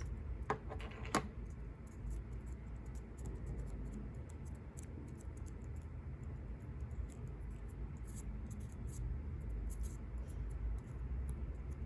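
Faint paper handling: small ticks, taps and rustles as folded sticky-note paper is pressed and glued together, over a steady low hum.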